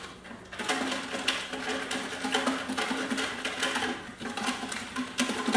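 Slips of paper shaken inside a large plastic coffee-creamer canister, a dense rustling rattle that starts about half a second in, as the entries are mixed for a name drawing.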